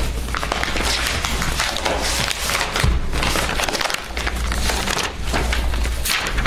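Paper documents and manila envelopes being handled and leafed through on a table close to the microphone: dense, irregular crackling rustles over a low hum.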